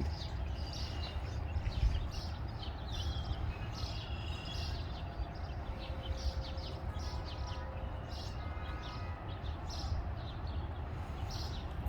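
Small songbirds chirping in many short, scattered notes, with a few brief whistled notes, over a steady low background rumble.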